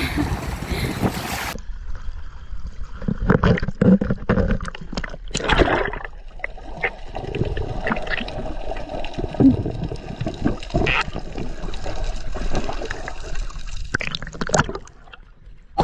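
Water splashing and sloshing close to the microphone, in uneven surges.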